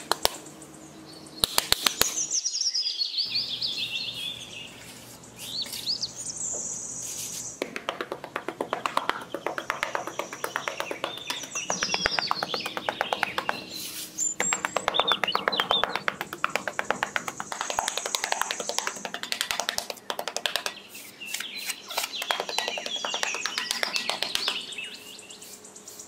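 Birds chirping and whistling, over quick repeated scraping of a small metal hand trowel spreading and smoothing sand.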